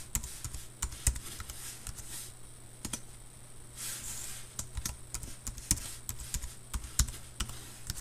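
Typing on a computer keyboard: irregular clicking keystrokes, with a low steady hum underneath.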